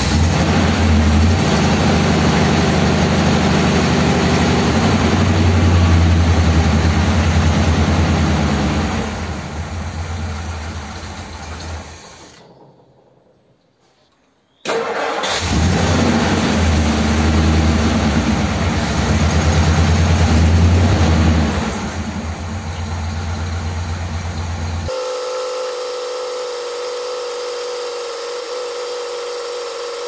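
1957 Ford Thunderbird's Y-block V8 running, then dying away about ten seconds in as an idle mixture screw is wound right in on the carburettor. It is running again about fifteen seconds in. Near the end the sound changes suddenly to a quieter, steadier note.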